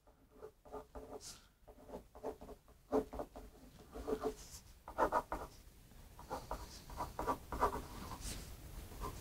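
A pen writing on a paper card laid on a table: a quick, irregular run of short strokes as words are written out by hand.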